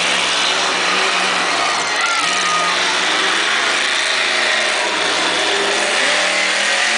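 Bounty Hunter monster truck's engine running loud and steady as the truck drives and turns, its revs rising and falling a little.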